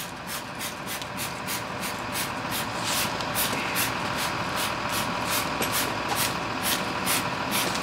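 Hand trigger spray bottle of engine cleaner being pumped over and over, giving short hissing squirts about three a second.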